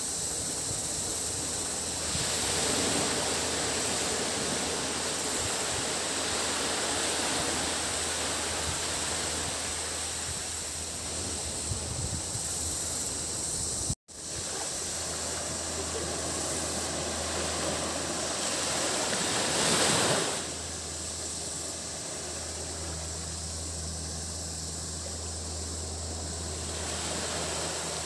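Sea waves washing onto a tropical beach, swelling louder a couple of times, over a steady high drone of cicadas and a low steady hum underneath. The sound drops out for an instant about halfway through.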